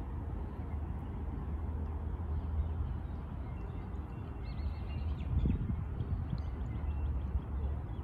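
Steady low outdoor rumble, with a few faint high bird chirps about halfway through.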